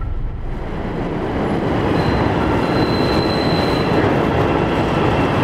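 Chicago L elevated train running along its steel elevated track, a dense steady rumble of wheels on rail with a thin high wheel squeal from about two to four seconds in.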